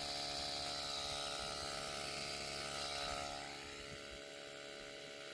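Steady mechanical motor hum made of several even tones, easing slightly in level about three and a half seconds in.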